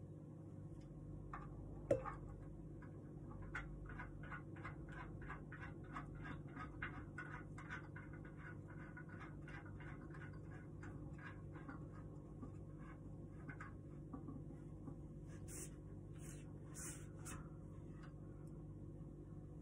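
A screw being turned by hand with a screwdriver into a wooden table part: a run of faint, regular clicks, about two or three a second, with a single sharper knock about two seconds in and a few short hissy scrapes near the end.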